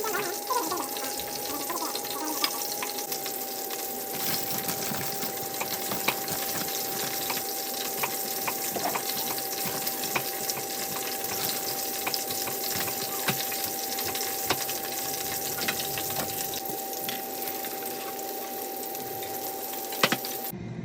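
Chicken quesadilla sizzling in a frying pan: a steady hiss with scattered crackles and pops over a faint steady hum, and a sharp click just before the sound cuts off near the end.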